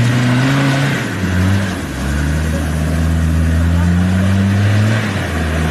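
Off-road 4x4's diesel engine revving hard under heavy load as it climbs through deep mud. It holds high revs, dips about a second in, picks up again, then falls off near the end.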